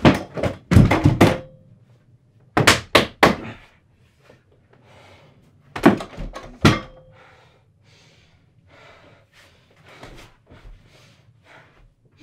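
A fist hitting a bedroom wall in frustration: a quick run of heavy thuds, three more about two and a half seconds in, then two at about six seconds, followed by only faint small sounds.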